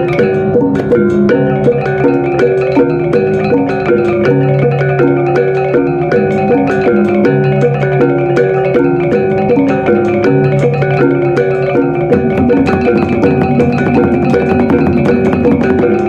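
Music with a mallet-percussion melody over a steady, repeating bass line.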